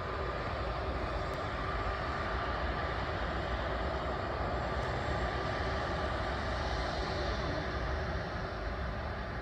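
Airbus A380's four jet engines running on the takeoff roll: a steady rush of engine noise with a faint, steady high whine through it.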